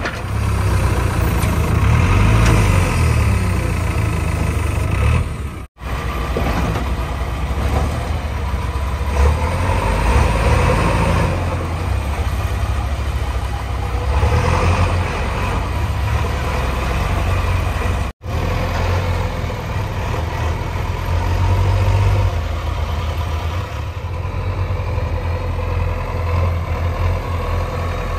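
JCB 3DX backhoe loader diesel engines running, their level rising and falling as the machines work. The sound drops out abruptly for a moment twice, about six and eighteen seconds in.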